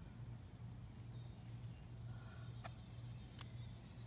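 Quiet backyard ambience: faint distant bird chirps over a steady low hum, with two light clicks less than a second apart near the end.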